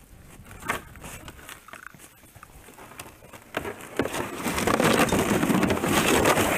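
Footsteps crunching in crusty snow, then from about three and a half seconds in a loud, continuous scraping as a plastic ice-fishing sled loaded with gear is moved over snow and ice.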